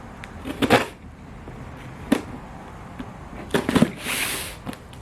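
Hands opening a shipping package: a few sharp knocks and taps as the box is handled, a quick cluster of them past the middle, then a brief rustle of packaging.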